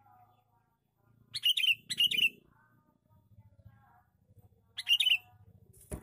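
Male sooty-headed bulbul (kutilang) calling: three short, loud, warbling phrases, two close together early and one about five seconds in. A sharp click sounds just before the end.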